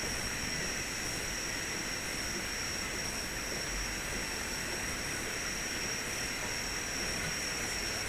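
Steady rushing sound of falling water accompanying an LED waterfall light display, with a continuous high-pitched whine over it.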